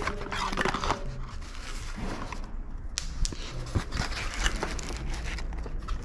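Cardboard packaging rustling and crinkling as a small box insert is folded open by hand, with plastic wrapping crinkling and a few sharp clicks of the cardboard.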